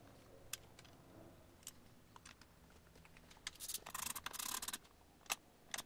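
Faint clicks and knocks from a power seat's track and adjuster parts being handled and fitted, with about a second of scraping and rustling past the middle.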